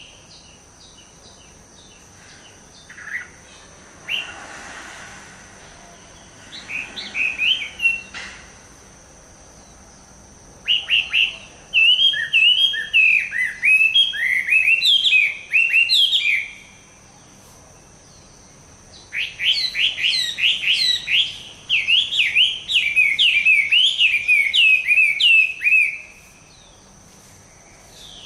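Chinese hwamei singing: bursts of fast, rising and falling whistled notes, short at first, then two long phrases of several seconds each with pauses between them.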